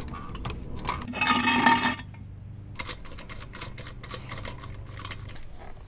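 Hand tools at a pickup's front wheel: a loud noisy burst lasting about a second, then a long run of quick light clicks as the lug nuts are worked loose.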